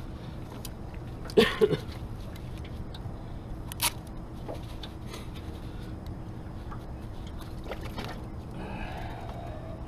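Handling noises aboard a small fishing boat as tackle is worked by hand: a brief loud double knock about a second and a half in and a sharp click near four seconds, over a steady low hum.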